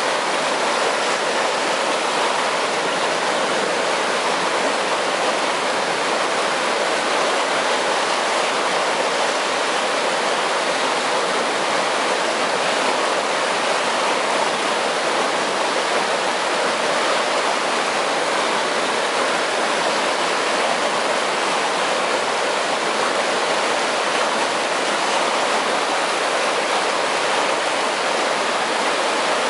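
Water rushing steadily through a concrete irrigation canal where it enters an aqueduct, a constant loud even rush with no change.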